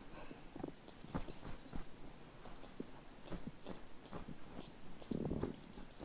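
Small bird chirping, high-pitched, in several quick bursts of rapid notes.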